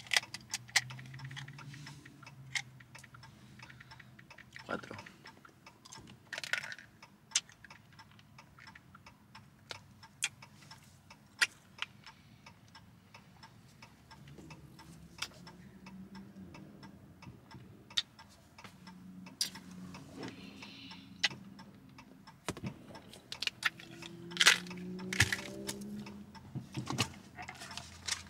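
Irregular sharp clicks and taps from small objects being handled, with faint low voice sounds now and then.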